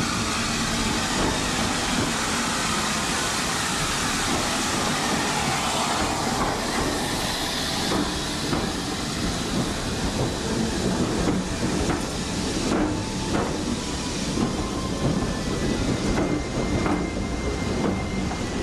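A saddle-tank steam locomotive hissing steam as it runs slowly past, followed by its passenger coaches. Their wheels click over the rail joints, the clicks coming more often and sharper in the second half.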